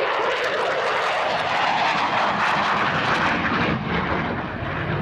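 Su-27 Flanker jet running its twin AL-31F turbofan engines: a steady, broad jet noise that swells slightly around the middle and eases a little near the end.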